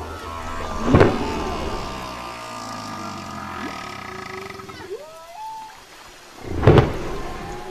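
Whale calls: drawn-out moans and upward-sliding, bending whoops, with a held multi-tone cry in the middle, broken by two sudden loud sounds about a second in and near the end.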